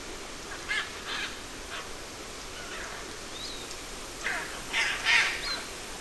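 Scarlet macaws giving harsh, raucous squawks: a few fainter calls in the first two seconds, then a louder run of squawks from about four seconds in.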